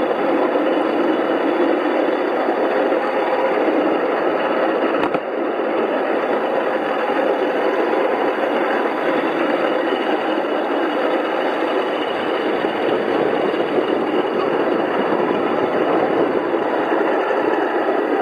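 A 5-inch gauge garden railway train running, a steady rolling noise of wheels on track, with a brief break about five seconds in.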